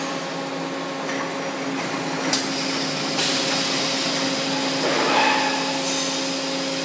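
Pneumatic clamp cuber at a concrete block plant, working over a steady machinery hum: a sharp metal clank about two seconds in, then a strong hiss of compressed air from the gripper's air lines from about three seconds in.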